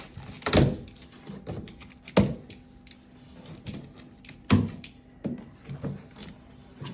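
A cardboard box being cut open and handled: three loud, sharp thumps about a second and a half to two seconds apart, with lighter knocks and taps between them.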